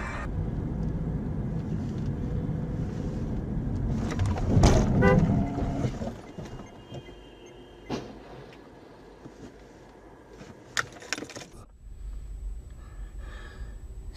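Steady road and engine noise of a moving car heard from a dashcam, with a brief loud burst about five seconds in, then quieter running with a few sharp clicks.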